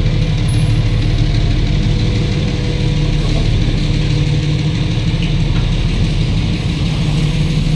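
Diesel locomotive engine running steadily, a loud, even low hum.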